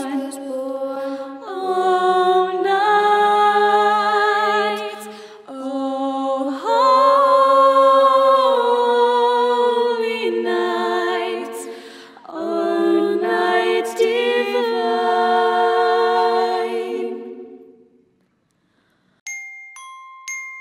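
Several voices singing slow, held notes in harmony, with a wavering vibrato, in phrases a few seconds long; the singing fades out about 18 seconds in. About a second later a glockenspiel starts ringing single notes.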